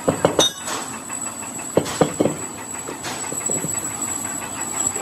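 Metal clanks and knocks from a large Grasso compressor piston being turned over by hand and set down upright on a workshop floor: a quick cluster of knocks right at the start, another about two seconds in, and a few lighter taps later, over steady workshop machine noise.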